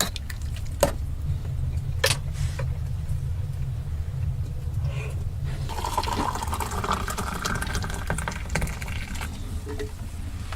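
Sharp metal clinks of a utensil against a cooking pot over a steady low rumble, then about six seconds in a few seconds of liquid sloshing and filling, from a pot of noodle broth.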